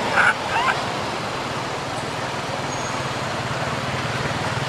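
Baby long-tailed macaque giving a few short, high crying calls in the first second, the cry of an infant calling for its mother. A steady background rumble runs under it.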